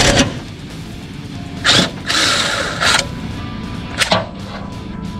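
Background music under intermittent hand-tool work on bolts: a few short metallic clicks and strokes, with a longer hissy rasp about two seconds in.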